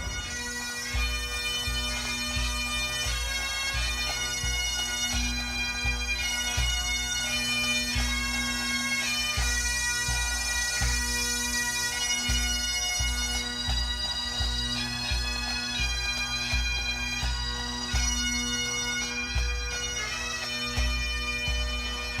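Highland bagpipes playing a tune: a melody moving from note to note over steady, unbroken drones, with a regular low beat underneath.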